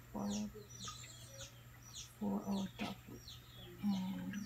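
Birds calling: rapid high chirps repeated over and over, with a few short low calls, over a steady low hum.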